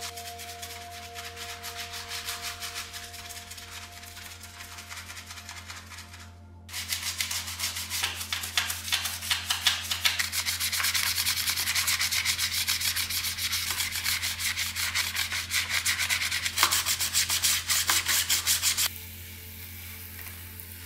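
A toothbrush scrubs a soapy plastic radio front panel in rapid back-and-forth strokes, getting louder and busier from about seven seconds in. Near the end the scrubbing stops and a softer, steady hiss of water spraying over the panel takes over.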